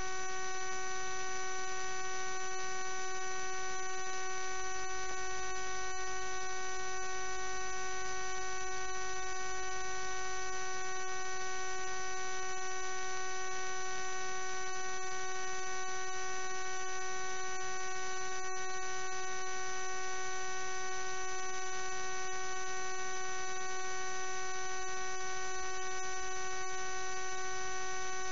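Steady electrical hum with a set of high, unchanging whining tones over faint hiss: interference on a drain inspection camera's recording.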